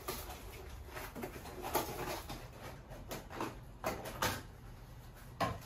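A small cardboard box being handled and opened by hand: a red strap pulled off and the cardboard flaps worked open, with several sharp clicks and crackles scattered through.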